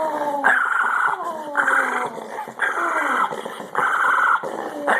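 Jack Russell terrier making squeaky whining noises, a call about once a second, each starting high and sliding down in pitch.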